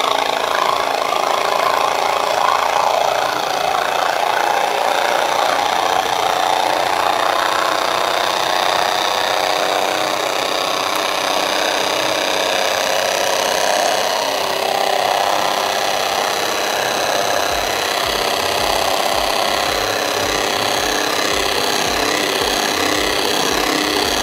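Scarlett 180 W electric hand mixer running with its two wire whisk beaters in eggs, loud and steady. The noise comes from the beaters striking the base of a bowl that is too small, not from the motor.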